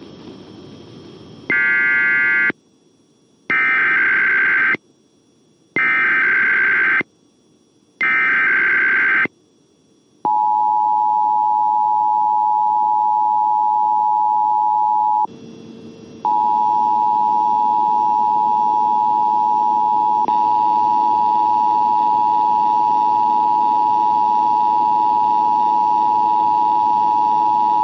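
Emergency Alert System signal: four short bursts of screechy digital data tones, the SAME header, about two seconds apart, then the steady two-tone EAS attention signal, which drops out briefly about fifteen seconds in and resumes.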